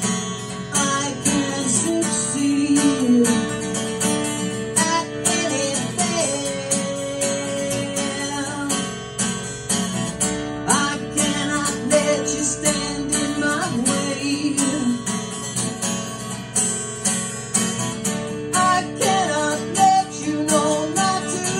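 Live guitar music: a guitar strummed in a steady rhythm, with a melodic line over the chords and no words sung.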